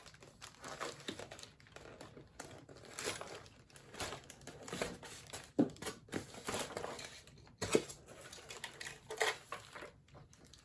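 Packaging crinkling and rustling as it is handled and pulled off a model train car, with a few sharper clicks and taps in the middle.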